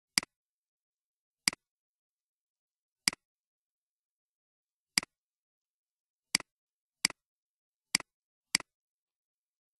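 Computer mouse clicks: eight sharp clicks at uneven intervals, coming closer together in the second half, each a quick double tick of press and release.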